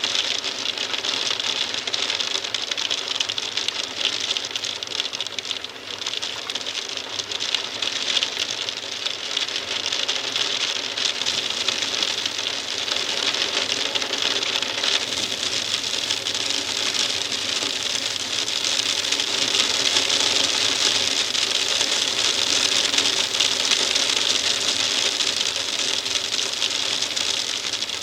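Hailstones tapping on a windowpane, heard from inside the room: a dense, steady patter of small clicks that grows a little louder in the last third.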